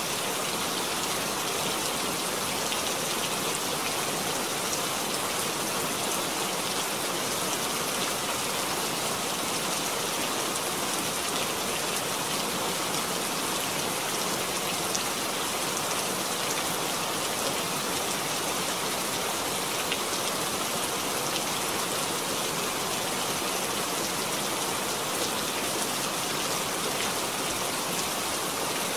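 Steady rain falling, an even hiss of many fine drop splashes that neither builds nor fades.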